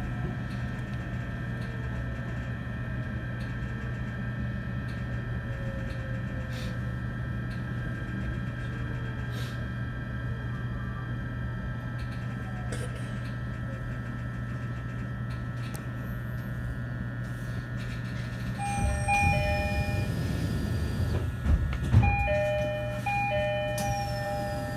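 E129 series electric train standing with a steady electrical hum, a faint falling whine fading in the first few seconds. About 19 seconds in the two-note door chime sounds repeatedly, with a thud of the doors a few seconds later.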